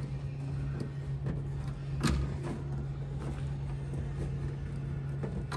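A rubber wiring grommet and the plastic tray-liner edge being pressed back into place by hand, giving a few small clicks and knocks, the sharpest about two seconds in, over a steady low hum.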